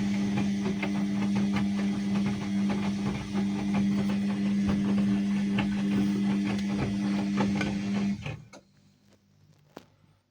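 Ariston washing machine running with a steady low hum and a dense patter of small clicks and rattles, cutting off abruptly about eight seconds in.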